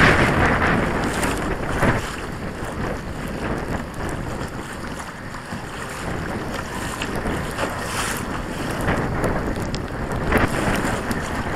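Wind buffeting the microphone over water splashing and slapping against a kayak's hull as it pushes through choppy water. It is louder at the start and builds again near the end.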